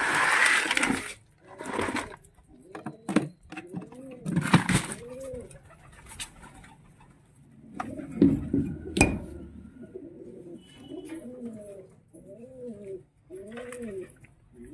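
Domestic pigeons cooing over and over, in runs of arching low calls. Several short bursts of rustling cut in, the loudest right at the start, with a sharp knock about nine seconds in.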